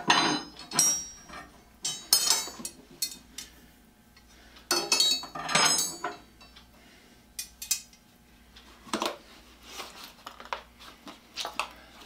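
Metal drill bits clinking and clattering against each other and the workbench as they are handled, in a string of separate bursts with a brief metallic ring.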